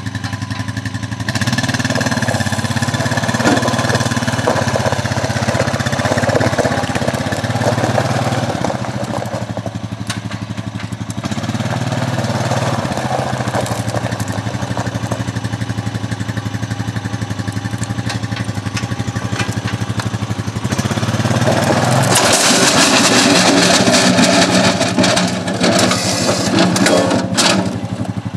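Honda Rancher 420 ATV's single-cylinder engine running under load while working a gravel pile, revving up in stretches. Near the end, about 21 seconds in, a loud noisy stretch of several seconds rises over the engine.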